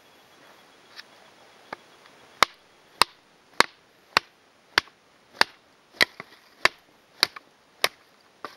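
Wooden baton striking the spine of an Ontario RAT-7 knife, driving the blade down through a log round to split firewood. Two light taps come first, then about ten sharp knocks at an even pace of roughly one every 0.6 seconds.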